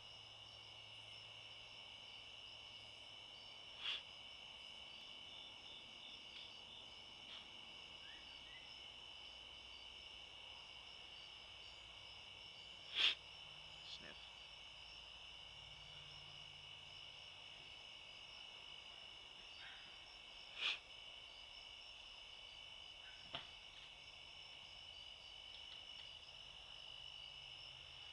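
Faint night chorus of crickets and other insects, steady and high-pitched. A few brief sharp clicks break in, the loudest about halfway through.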